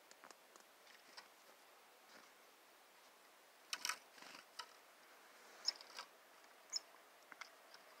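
Faint scattered clicks and taps, a quick cluster of them about halfway through, with two brief high chirps soon after: chickadees at a feeder.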